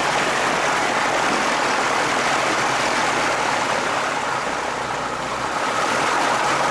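Piper PA-28-140 Cherokee's four-cylinder Lycoming engine and propeller running steadily at low taxi power, heard from inside the cabin, easing slightly in level about five seconds in.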